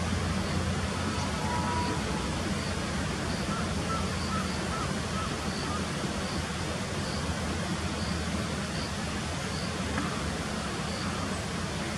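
Steady outdoor ambience of a city park: a low, even rumble like distant traffic, with a faint high insect chirp repeating about every 0.7 seconds and a few brief faint bird calls in the first half.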